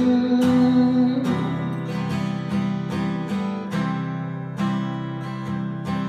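Acoustic guitar strummed in a steady rhythm, about two strokes a second, between sung lines. A man's held sung note carries over at the start and fades out about a second in.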